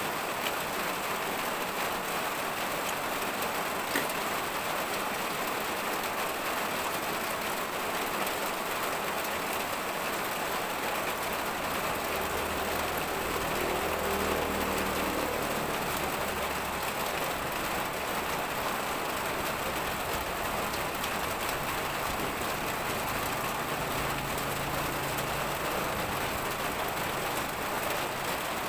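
A steady, even, rain-like hiss. A faint low hum swells briefly about halfway through.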